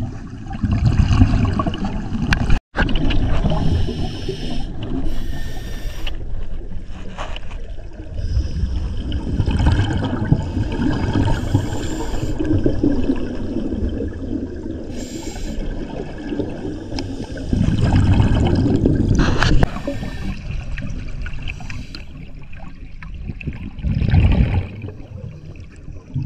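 Muffled underwater sound of a scuba diver's exhaled regulator bubbles rising in surges every few seconds over a steady wash of water noise.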